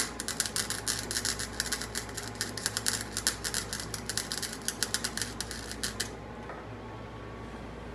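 Flux-core wire welder (Harbor Freight Flux 125) crackling steadily for about six seconds, then cutting off: a short touch-up pass filling small gaps in a weld on a steel mower pulley.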